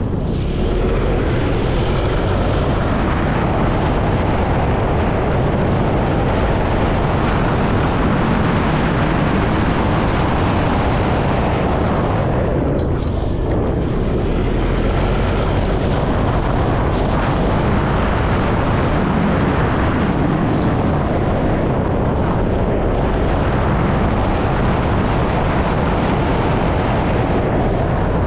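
Wind rushing over the action camera's microphone on a moving motor scooter: a steady low rumble that eases briefly about halfway through as the scooter slows for a roundabout.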